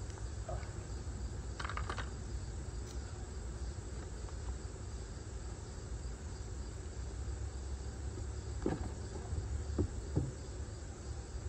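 Outdoor ambience of insects with a low steady rumble. A few light clicks come about two seconds in, and a few knocks near the end as the personal watercraft's seat is opened and lifted.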